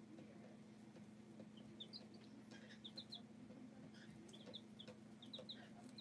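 Baby chicken chicks peeping faintly in short, high chirps, in quick runs of two to four, over a steady low hum.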